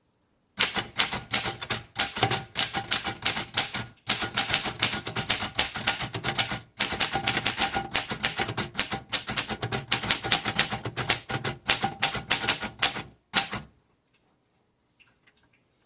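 Typing on a 1938 Royal Junior portable typewriter: a steady run of keystrokes, several a second, as the typebars strike the platen. Two short pauses break the run, and it stops about 13 seconds in.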